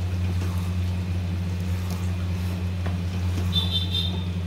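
A steady low hum, with soft scraping of a wooden spatula stirring thick curry in a kadai. A brief high tone sounds about three and a half seconds in.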